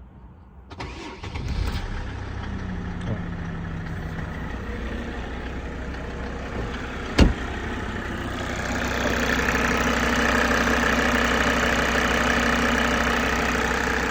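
Mercedes OM605 five-cylinder diesel starting from cold about a second in, then idling fairly evenly during the warm-up while the glow plugs are still on, before its knock sets in. A single sharp click comes about seven seconds in, and the idle grows louder from about eight seconds on.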